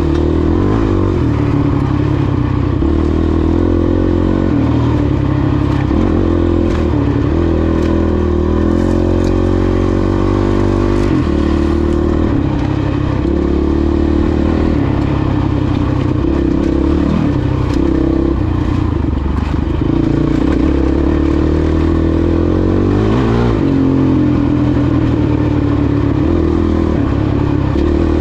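450 dirt bike's engine running on the move, its pitch rising and falling as the throttle opens and closes and the gears change, with scattered short knocks from riding over rough ground.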